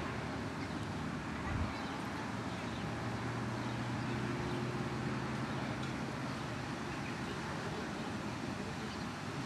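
Steady outdoor city ambience with a low hum of distant traffic, and a brief low thump about one and a half seconds in.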